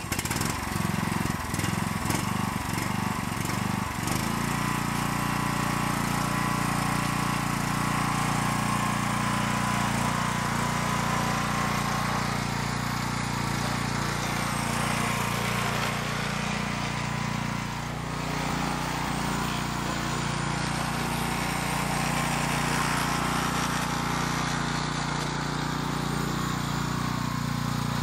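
The gasoline engine of a DR all-terrain mower (AT1, 1998) running just after it is started: uneven for the first few seconds, then running steadily as the mower drives itself off on its new drive chain.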